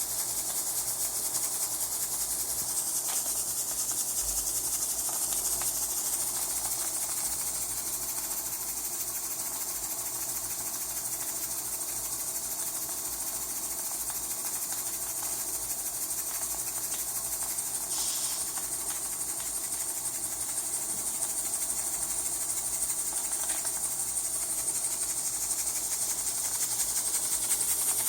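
Steady high steam hiss from a small homemade cross-tube steam boiler under steam, with a few faint ticks.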